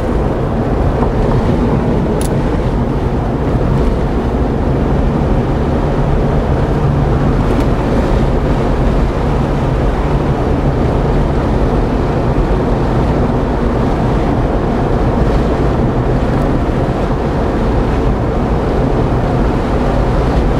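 Car driving at steady speed, heard from inside the cabin: a constant rumble of engine and tyre noise, with wind rushing over the microphone.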